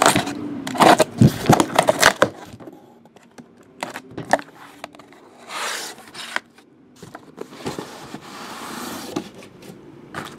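Sealed cardboard shipping case being cut open by hand: a run of sharp clicks and scrapes at first, then two longer rustling, tearing stretches as the packing tape and cardboard flaps are pulled open.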